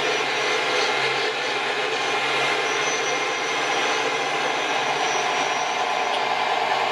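Steady mechanical running noise like an engine running, even in level throughout.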